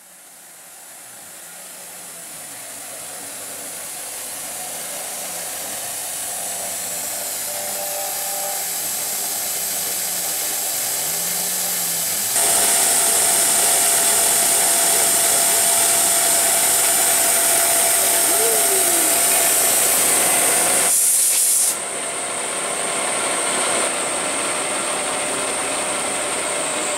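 1970s Denford CNC milling machine, retrofitted with PC control, running its end mill into a steel block to cut a rivet-head pocket, with a steady high hiss. It grows louder over the first half, jumps louder about halfway, then drops abruptly a few seconds before the end.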